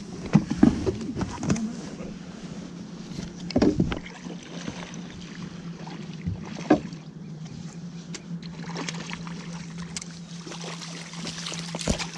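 A boat motor running with a steady low hum, with a few sharp knocks and clatters on the boat: several in the first two seconds, then single ones near four seconds, near seven seconds and at the end.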